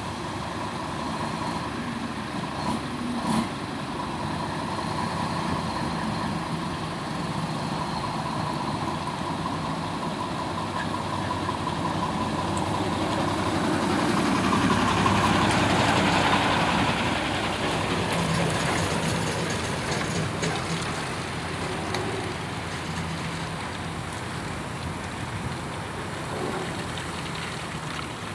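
Diesel engines of Hino container trucks running. The engine sound grows louder toward the middle, at its closest to a green Hino tractor unit, then fades off again.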